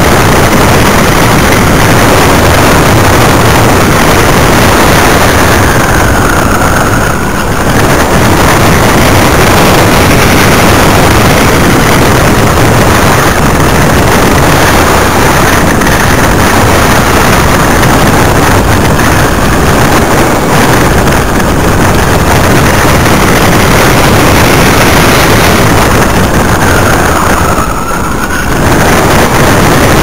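Light aircraft's engine and rushing wind on the microphone, a loud steady noise in flight, dipping briefly twice.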